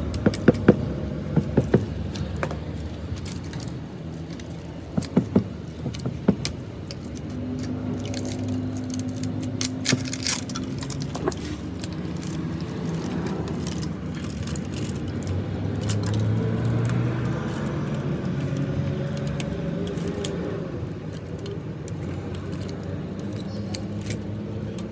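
Scattered sharp metallic clinks and knocks, mostly in the first few seconds, over a steady low hum with a shifting pitch.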